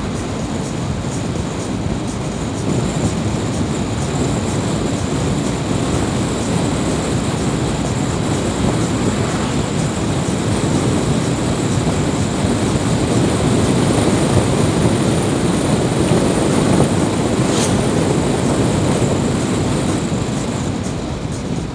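Engine and tyre noise of a vehicle driving on an open road, heard inside its cab: a steady rumble that grows a little louder past the middle. There is a single sharp click about three-quarters of the way through.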